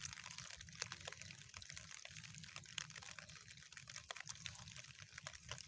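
Faint wet squelching and small splashes of hands and a live eel working in a muddy, water-filled hole: many short irregular wet clicks.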